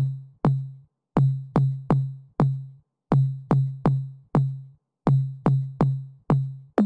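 Music: a drum-machine beat of deep, booming bass-drum hits that each die away quickly. They come in groups of four, a group about every two seconds with a short gap between groups.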